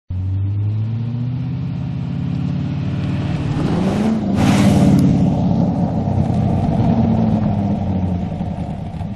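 Sports car driving past: its engine note rises as it accelerates toward the listener, is loudest as it passes close by about four and a half seconds in, then drops in pitch and fades as it drives away.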